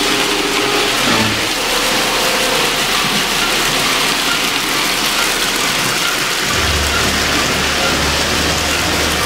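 Toy electric trains running on three-rail O-gauge track, a steady rolling rumble of wheels and motors. A low hum joins about six and a half seconds in.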